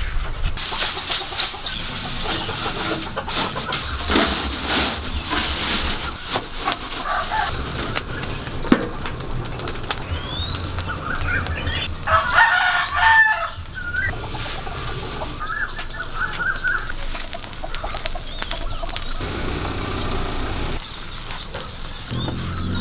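Rice straw burning around metal tins, crackling and rustling, while chickens cluck. A rooster crows once just after halfway through.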